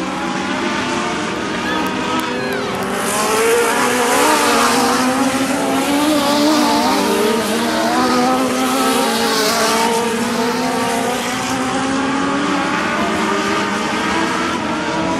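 Several Legends race cars running on the track, their small motorcycle-derived engines overlapping, with the engine notes wavering up and down in pitch.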